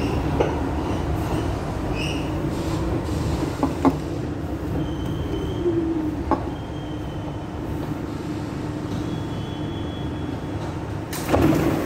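Kawasaki R62 subway car (Bombardier groupswitch propulsion, GE 1257E1 motors) running on the rails with a steady rumble. A few sharp clicks of wheels over rail joints and a faint wheel squeal are heard, and there is a louder clatter near the end.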